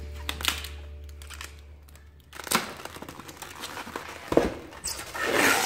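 Styrofoam packaging and plastic wrapping being handled: a few light clicks and knocks, then a louder rustling crinkle near the end. Background music fades out in the first two seconds.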